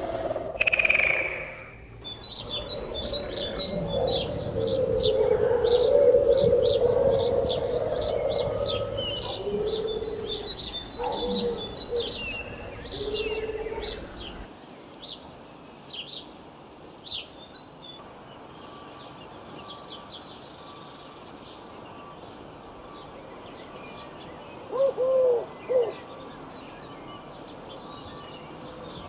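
Small birds chirping repeatedly in short, high notes over a low rumbling noise that stops about halfway through. Two short, louder, lower calls come near the end.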